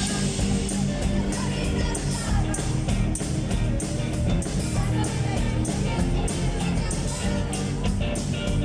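Live rock band playing amplified music with guitar and a steady drum beat.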